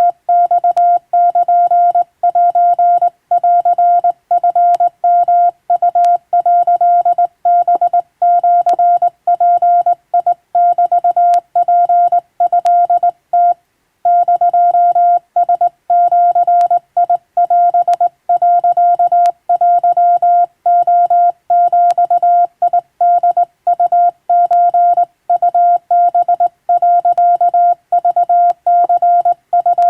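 Hand-keyed Japanese (wabun) Morse code: a single steady mid-pitched tone keyed on and off in dots and dashes, grouped into characters with short gaps between them and one longer pause about halfway through.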